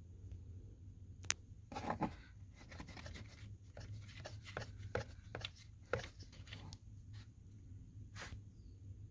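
Irregular short clicks and scraping, like hands handling small hard parts, over a steady low hum. The loudest clicks come about a second in and again near the middle.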